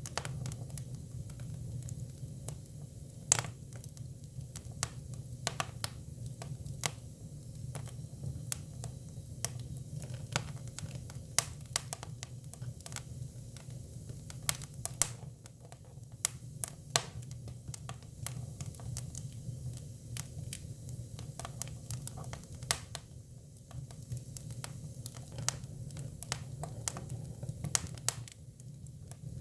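Hinoki cypress firewood burning, with irregular sharp pops and crackles over a steady low rumble.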